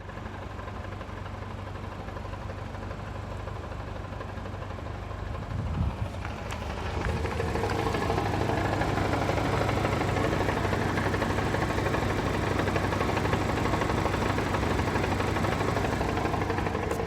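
Haval H5 idling with knocking from the gearbox, the knock that comes when the air conditioner is switched on. About six seconds in the sound grows louder and busier and stays that way.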